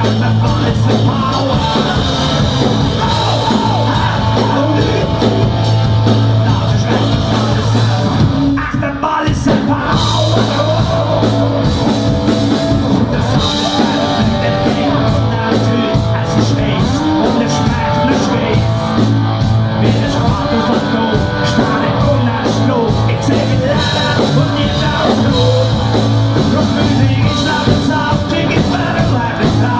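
Hard rock band playing live: distorted electric guitars, electric bass and drums, with a male voice singing. The playing drops out briefly about a third of the way through, then comes back in.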